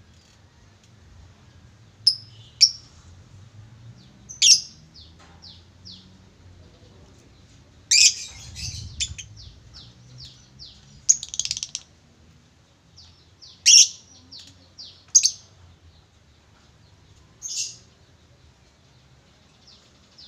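Male lovebird calling: about eight loud, sharp, shrill chirps spaced a second or more apart, several trailing into a quick run of shorter chirps.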